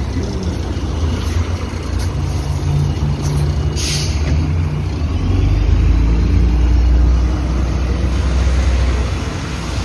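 MAZ 105.065 articulated city bus's diesel engine running at the stop, with a short sharp hiss of compressed air about four seconds in; from about five seconds the engine grows louder as the bus pulls away.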